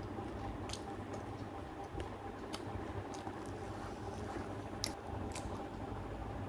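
A person chewing a mouthful of food with the mouth closed, with a few short sharp clicks scattered through, over a steady low hum.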